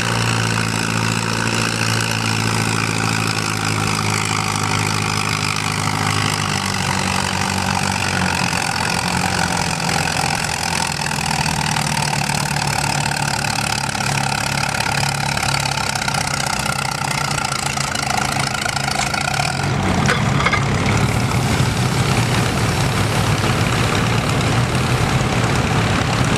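Antique pulling tractor's engine running steadily at low speed while hitched to the weight sled. About twenty seconds in, the engine note gets deeper and a little louder.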